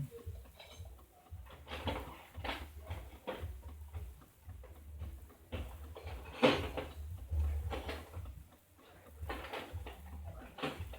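Volvo S40 engine running unevenly at idle with a misfire, a low pulsing rumble with irregular clicks and knocks over it; one sharp knock about six and a half seconds in is the loudest.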